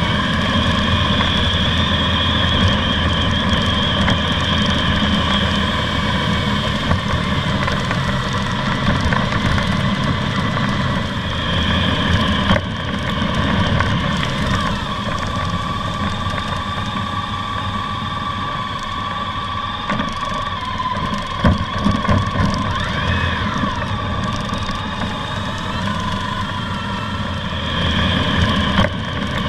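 Honda ST1300's V4 engine running steadily under way, heard from a camera on the bike, with road and wind noise. A couple of short knocks come about two-thirds of the way through.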